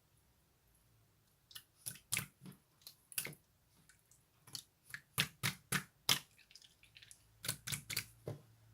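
Slime being pressed and worked by hand, giving a string of sharp wet clicks and pops in irregular clusters, starting about a second and a half in.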